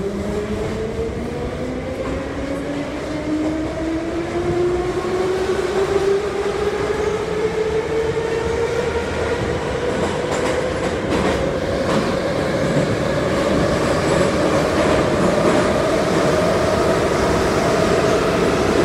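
Type 81-717/714 metro train accelerating: the traction motor whine rises steadily in pitch and levels off near the end, over the rumble of the wheels on the rails with a few clicks of rail joints.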